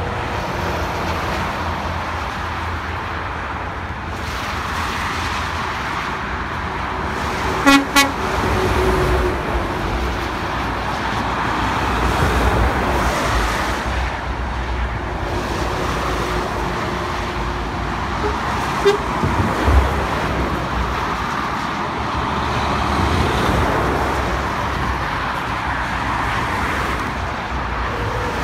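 Steady motorway traffic noise from passing cars and lorries, broken about eight seconds in by two short horn toots in quick succession from a lorry, the loudest sounds here. A fainter, briefer sound follows at about nineteen seconds.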